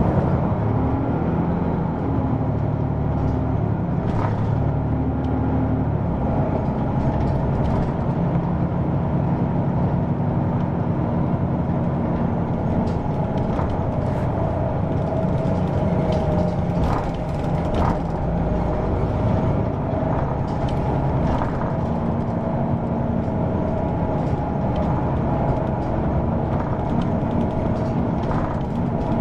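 Hino PDG-KV234N2 diesel route bus running, its engine drone shifting in pitch as it drives, with scattered short clicks and rattles.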